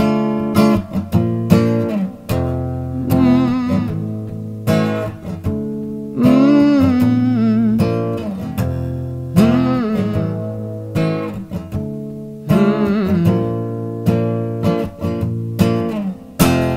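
Acoustic guitar strummed in a steady rhythm, with chords ringing between the strokes.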